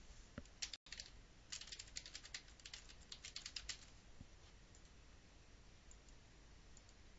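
Faint typing on a computer keyboard: a quick run of keystrokes from about one and a half to four seconds in, with a few single clicks before it and scattered faint ones after.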